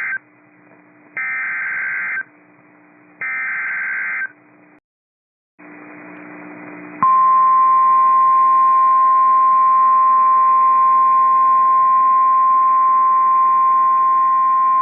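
Emergency Alert System SAME header for a severe thunderstorm warning on weather radio: the tail of one data burst, then two more one-second bursts of high warbling digital screech about a second apart. After a short dropout and rising static hiss, the NOAA Weather Radio 1050 Hz warning alarm tone starts about seven seconds in and holds steady and loud.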